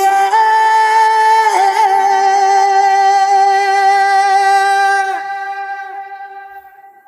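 Isolated a cappella male lead vocal holding one long sung 'iêê' note. The note dips slightly in pitch after about a second and a half, then fades away over the last two seconds.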